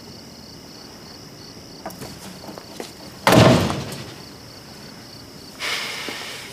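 A door bangs open about three seconds in, over a steady background of chirping crickets. A shorter rushing swell follows near the end.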